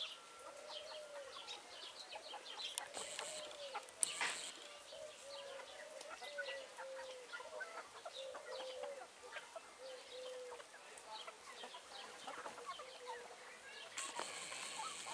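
Light Brahma chickens clucking: a steady run of short, low, arched clucks, with high chirps scattered throughout. A sharp click comes about four seconds in.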